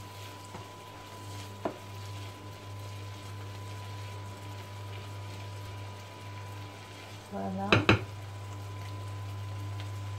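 Mixed seafood (squid rings and shellfish) sizzling in a frying pan while a wooden spoon stirs it. Two sharp knocks come about eight seconds in.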